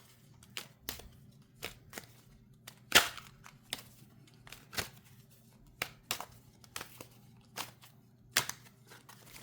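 Tarot cards being shuffled and drawn by hand: irregular sharp snaps and slaps of the cards, about one or two a second, the loudest about three seconds in, over a faint steady hum.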